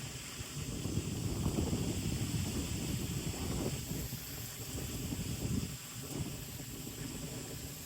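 Wind gusting through trees and buffeting the microphone. Low rumbles rise and fall with the gusts, strongest between about one and three seconds in, over a steady high hiss.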